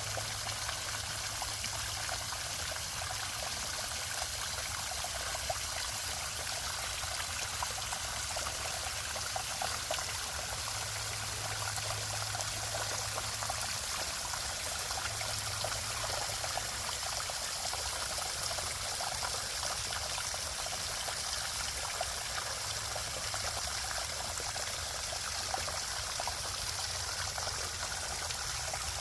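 Running water trickling and splashing steadily, with no break or change.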